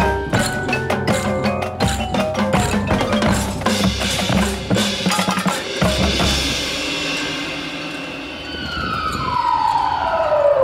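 Indoor percussion ensemble playing: snare, tenor and bass drums with marimbas and other mallet percussion, dense drum strokes in the first half. From about eight seconds in, a long falling electronic sweep takes over as the drumming thins out.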